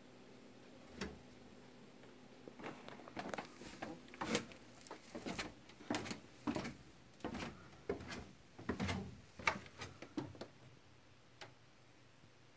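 Scattered soft knocks, taps and scuffs, irregular and uneven in strength, starting about a second in and dying away near the end.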